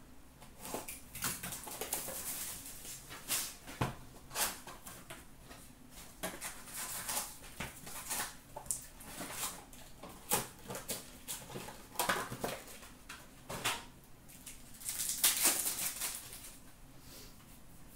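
Cardboard box of O-Pee-Chee hockey card packs being opened and the packs pulled out, giving a string of short rustles and light taps. About fifteen seconds in there is a longer, louder crinkling as a pack is torn open.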